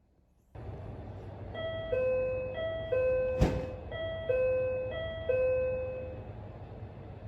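An electronic two-tone chime, a short high note then a longer lower one, sounding four times over a steady hiss, with one sharp click about halfway through.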